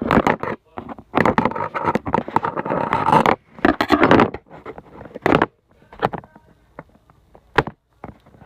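Metal scraping and clattering as a tool pries at a laptop hard drive's neodymium magnet assembly, in long scraping stretches over the first four seconds or so, then a few separate sharp clicks.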